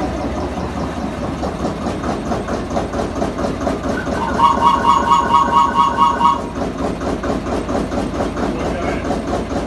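Gmeinder field-railway locomotive's two-cylinder engine idling with a steady rhythmic beat. About four seconds in, its newly fitted exhaust whistle sounds for about two seconds: a high whistle pulsing about five times a second in time with the engine's beat.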